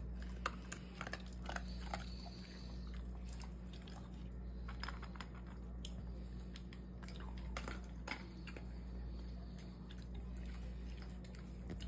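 A dog chewing and crunching dry kibble from a stainless steel bowl, in irregular bites.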